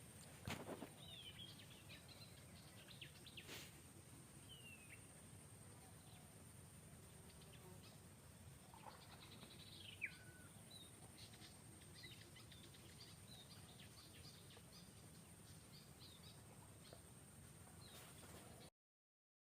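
Near silence: faint outdoor ambience with a few scattered faint chirps that glide up and down in pitch.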